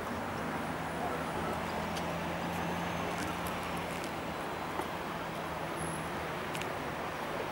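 Steady hum of city road traffic, with a low engine drone that fades out about six seconds in.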